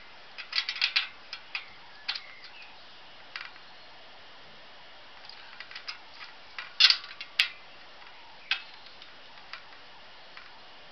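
Irregular sharp metallic clicks and ticks from a spoke key fitting onto and turning a road bike wheel's spoke nipples, tightening the spokes on one side to pull a slight lateral wobble out of the rim. The two loudest clicks fall close together about seven seconds in.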